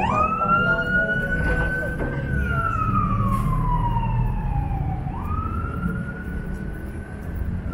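Wailing emergency-vehicle siren: the pitch jumps up quickly, holds, then slides slowly down, and the cycle repeats about five seconds in. Low street-traffic rumble runs underneath.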